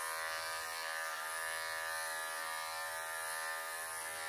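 Electric cat-grooming clippers running with a steady buzz while clipping a long-haired cat's coat.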